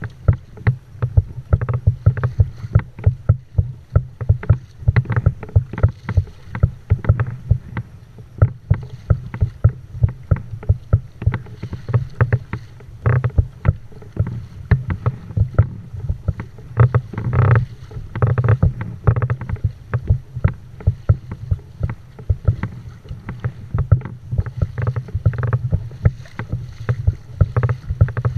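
Small waves slapping and splashing against a moving fishing kayak's hull, a dense, uneven run of low knocks several times a second.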